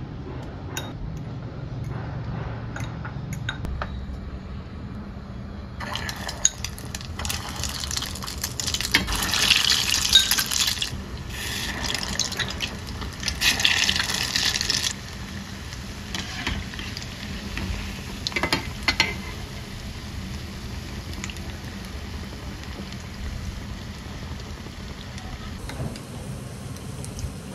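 Egg-coated potato balls deep-frying in hot oil in a pan, sizzling loudly for several seconds through the middle. A few sharp clicks follow in a quieter stretch, and the sizzle starts up again near the end.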